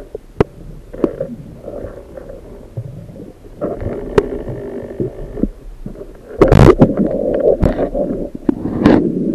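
Muffled underwater water noise through a camera's waterproof housing as a diver swims, a low rumbling with scattered sharp clicks. A louder rushing surge comes about six and a half seconds in, and another near the end.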